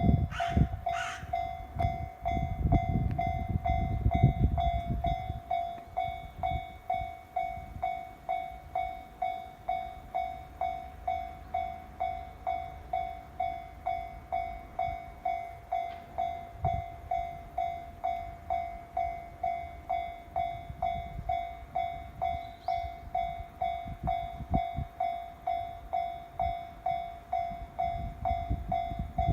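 Japanese level-crossing warning bell ringing in an even rhythm, about one and a half strikes a second. A passing train's rumble fades out over the first few seconds, and a low rumble of another train builds again near the end.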